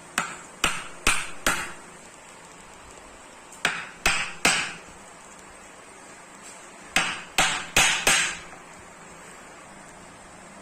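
Hammer blows in three quick runs of three to five strikes, about two a second, each with a short ringing tail, while a wooden marking gauge is being built.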